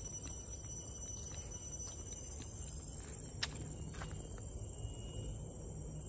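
Footsteps of a person walking on a paved path, light regular steps at about two a second.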